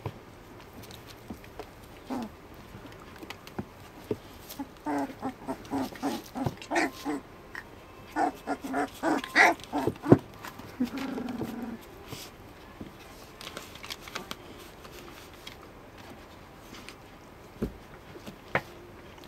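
Three-week-old Border Collie puppies whimpering in quick runs of short cries, about five seconds in and again at eight, then one longer whine. Soft knocks and scuffles from the puppies moving about on the bedding come in between.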